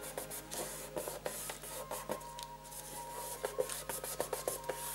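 Gloved hands rubbing and pressing over the wood-finish top panel of a Bang & Olufsen BeoCord 1100 cassette deck, pressing a freshly epoxied piece into place. The sound is an uneven run of scuffs, swishes and small clicks.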